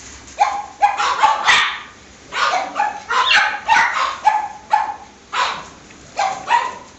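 Labrador puppies barking and yipping: short, high barks in quick runs of several a second, with brief lulls about two seconds in and near the end.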